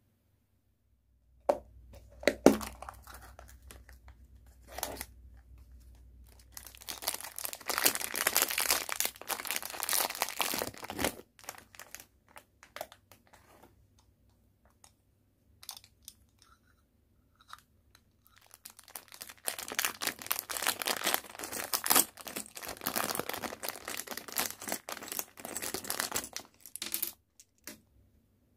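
Small hard-plastic gashapon miniatures and their packaging being handled: a few sharp clicks of plastic pieces, then two long stretches of crinkling and tearing of plastic wrapping.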